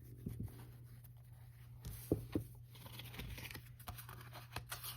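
Quiet handling sounds of a sand-cast copper piece being bagged up for shipping: light rustling of the bag with scattered small clicks and taps, the sharpest about two seconds in. A steady low hum underlies it.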